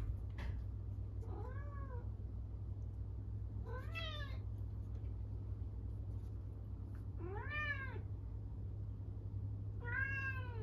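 Norwegian Forest Cat meowing loudly four times, a few seconds apart, each call rising and then falling in pitch. These are demanding calls to its owner, which the owner takes for a scolding for not staying with the cats.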